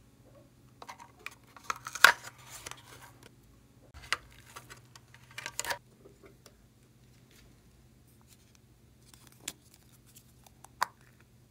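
Hollow plastic novelty containers handled close to the microphone: two bursts of crackling and clicking plastic, the first and loudest a couple of seconds in, the second about halfway through, then two single sharp clicks near the end. A faint steady hum sits underneath.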